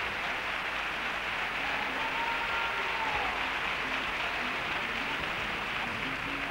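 Theatre audience applauding steadily, with a brief whistle about two seconds in.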